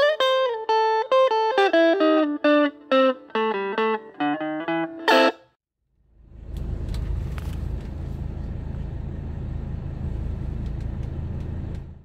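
Electric guitar music: a run of single plucked notes that stops about five seconds in. After a short gap, a steady low rumble.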